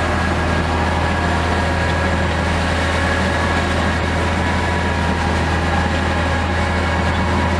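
Case IH CVX195 tractor's engine running steadily under load, heard from inside the cab, with a low drone and a few steady whining tones from the driveline. It is working a Kuhn HR3003 rotary power harrow.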